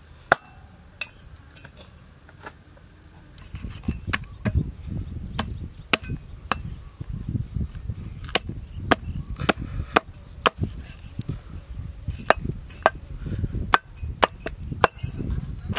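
Meat cleaver chopping through a goat carcass on a wooden chopping block: sharp, separate chops, roughly one or two a second. From about three and a half seconds in, a low rumbling noise runs underneath.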